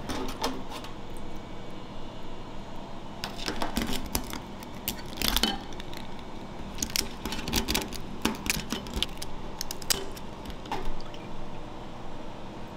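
Steel tongs clinking and scraping against a stainless steel tray and bowl while soy-marinated raw crabs are lifted out and taken apart. The clinks and clacks come irregularly and are loudest around the middle.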